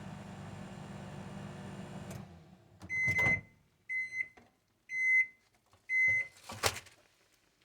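Microwave oven running with a steady hum that stops about two seconds in, followed by four short, evenly spaced beeps about a second apart signalling the end of the cooking cycle, then a sharp click near the end.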